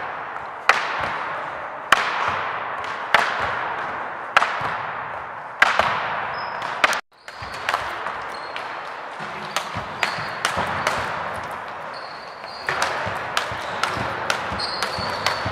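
Thuds on a wooden sports-hall floor echoing in the hall, about one every 1.2 seconds, as children land from jumps. About seven seconds in the even rhythm stops. Irregular knocks, bounces and short high squeaks of shoes on the floor follow.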